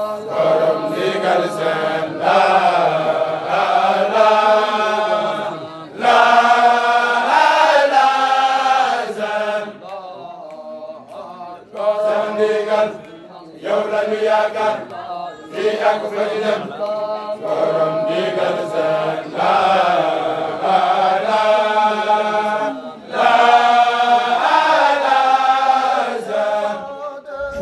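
A group of men chanting a Mouride Baye Fall zikr together in long melodic phrases, with brief pauses between phrases.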